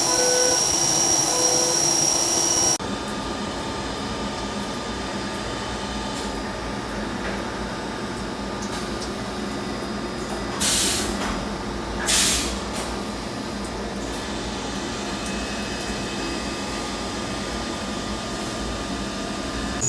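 CNC machine running: a high steady whine cuts off abruptly about three seconds in, leaving a steady lower machine hum, with two short loud hissing bursts a little past the middle.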